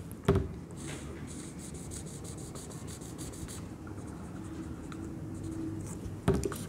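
Felt-tip marker on a whiteboard, drawn in quick short scratchy strokes as a small section is coloured in, with a single knock near the end.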